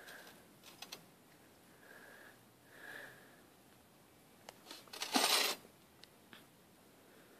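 Mostly quiet, with light handling noise: a few small clicks about a second in, and a couple of clicks followed by a short rustling burst about five seconds in.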